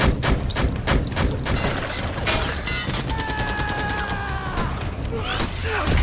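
Rapid automatic machine-gun fire in a film battle mix, shots crowding together for the first two seconds and thinning out after. A held, slowly falling tone runs through the middle.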